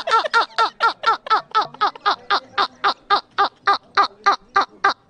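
A man laughing hard in a long, rhythmic run of short 'ha' bursts, about four a second, each falling slightly in pitch.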